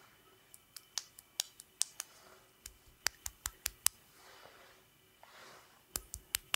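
Hands pressed and rubbed together close to the microphones: a string of sharp little clicks and pops, some in quick runs, with a few soft rubbing swishes between them.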